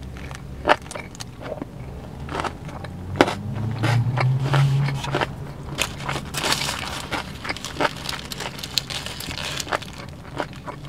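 Close-miked chewing and crunching of a sushi burrito (seaweed wrap, rice and crunchy vegetables) in a series of sharp crunches and wet chews, with a crinkly rustle of its foil wrapper in the middle. A low hum runs underneath and swells briefly about four seconds in.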